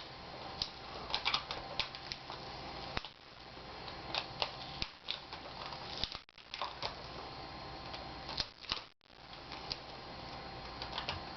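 Adhesive tape being peeled off a laptop screen's video cable while the panel is handled: scattered small clicks and crackles.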